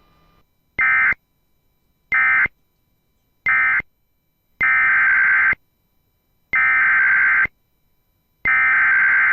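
NOAA Weather Radio EAS/SAME digital data bursts, each a harsh warbling screech. Three short bursts are the end-of-message code closing the previous alert. Three longer bursts, about a second each, are the header that begins the next alert.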